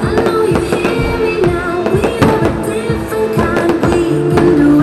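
Pyromusical soundtrack with a singing voice playing loud over the show, with fireworks popping and crackling many times throughout.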